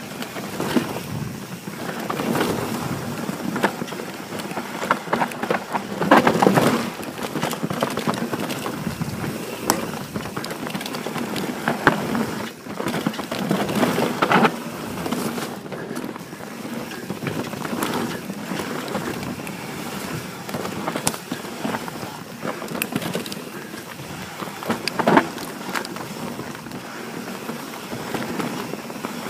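Santa Cruz Bronson full-suspension mountain bike descending a dirt singletrack: steady tyre noise on the dirt with frequent rattles and knocks from the bike over bumps, the loudest jolts about six seconds in and again near twenty-five seconds.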